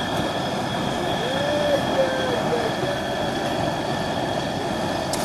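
Propane turkey fryer running: a steady burner roar with hot oil bubbling and sizzling around a whole turkey frying in the pot.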